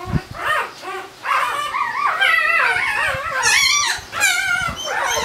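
A four-day-old Barbado da Terceira puppy crying with high, wavering squeals, almost without a break from about a second in, while it is handled for early neurological stimulation.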